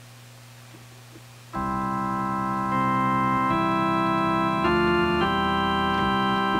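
Electronic organ playing slow, held chords that come in about a second and a half in, after a faint low hum, and change about once a second.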